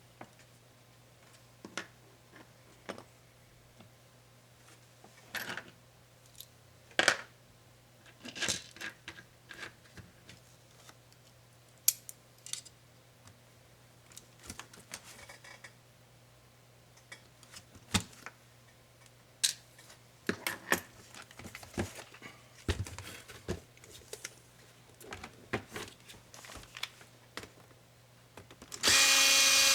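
Scattered light clicks, taps and plastic rattles as small laptop parts and tools are handled, then a small power screwdriver whirs loudly about a second before the end.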